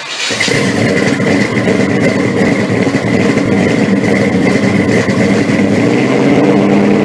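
Car engine idling loudly and steadily, with a thin steady whine running above it.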